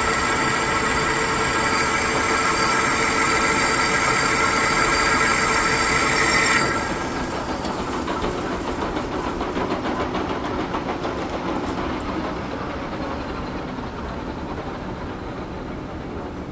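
Metal lathe taking a roughing cut, with a steady high-pitched ringing from the cutting tool on the workpiece. The ringing stops abruptly about six to seven seconds in, and the machine runs on with a rougher noise that slowly fades.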